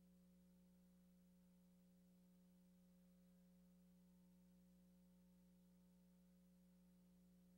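Near silence, with only a faint steady low electrical hum.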